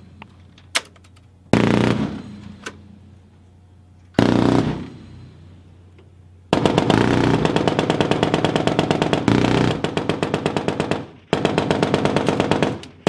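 Automatic gunfire from a German Navy shipboard weapon. Two short bursts each ring out and fade, then a long burst of rapid fire lasts about five seconds, followed after a short break by another rapid burst near the end.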